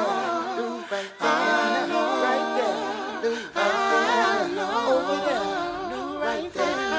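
A cappella vocal music: several voices singing together in harmony without instruments, with short breaks about a second in and about three and a half seconds in.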